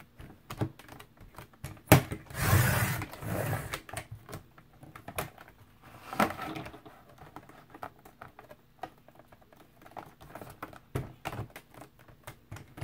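Sliding paper trimmer cutting thin cereal-box cardboard: a sharp click as the arm is set down, then the cutting head scraping along its rail for over a second, with a shorter pass about six seconds in. Light clicks and rustles of the cardboard and trimmer being handled in between.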